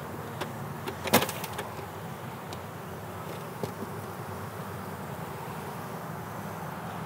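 Steady hum of honeybees around an opened hive, with a brief clatter of knocks about a second in as a plastic hive box is handled and set down.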